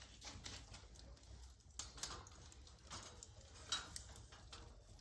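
Faint, scattered light clicks and ticks over a quiet background.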